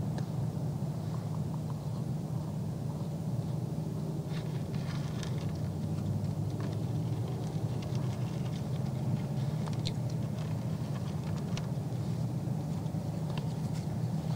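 Whitetail buck feeding at a trough, with scattered small crunches and clicks of chewing and nosing through the feed, over a steady low hum.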